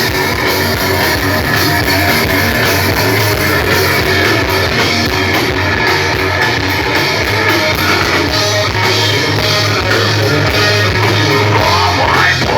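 Rock band playing live: electric guitar over a drum kit keeping a steady beat.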